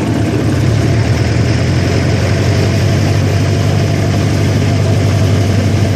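Engine of a safari ride train running steadily with a low, even hum.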